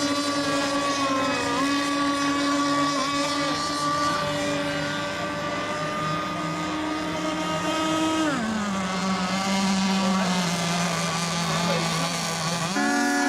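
Small engines of radio-controlled racing boats running on the water. The main engine note holds steady, then drops sharply in pitch about eight seconds in as it throttles back, and stays lower.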